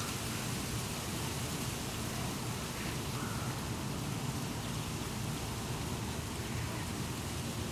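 Wind blowing steadily through a treetop, the leaves rustling in an even hiss.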